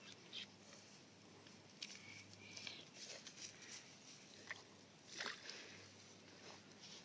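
Near silence with faint scattered clicks and crackles; the loudest comes about five seconds in.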